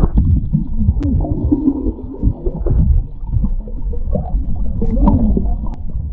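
Water churning around a camera held under the surface of a pool: a loud, low, muffled wash with the higher sounds cut off, and two sharp clicks.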